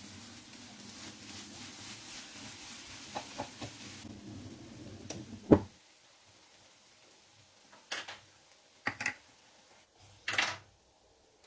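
Plastic spatula stirring thick semolina halwa in a nonstick pot, with small scrapes and a sharp knock against the pot about halfway through. A steady low hum stops at that point, and a few separate scrapes and taps of the spatula on the pot follow.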